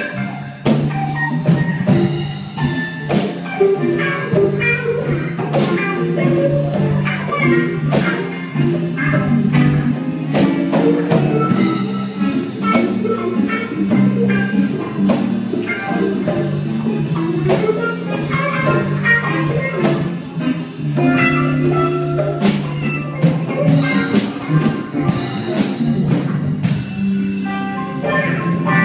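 Live jazz band playing: a drum kit keeps a steady beat under electric guitar lines.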